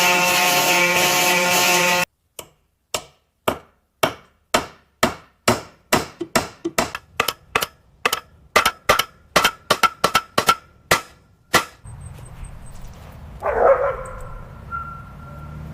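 A power tool runs steadily for about two seconds and cuts off suddenly. A run of hammer blows on wood follows, speeding up from about two to about four a second. Near the end, over a low hum, a dog gives one short bark.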